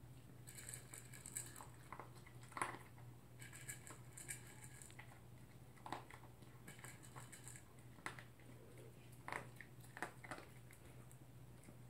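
Poodle eating from a plastic bowl: scattered sharp clicks of food and teeth against the bowl, with three short bursts of crunchy chewing a few seconds apart.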